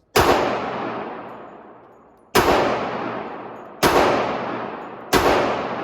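Four single shots from a .45 ACP 1911 pistol, fired at an unhurried, slightly quickening pace, each followed by a long echo that dies away over a second or more.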